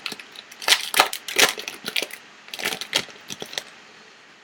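Crinkling and rustling of a foil trading-card pack wrapper being torn open and handled, in a string of short crackles that stop about three and a half seconds in.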